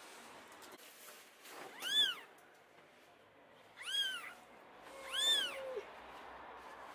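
Newborn kitten mewing: three short, high-pitched cries, each rising and then falling in pitch.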